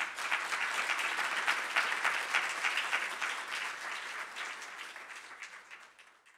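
Audience applauding, the clapping thinning out and fading over the last couple of seconds.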